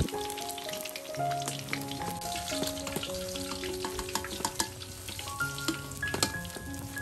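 Hot oil crackling and sizzling in a wok after fish has been fried, with a sharper click about six seconds in, over soft background music with a stepping melody.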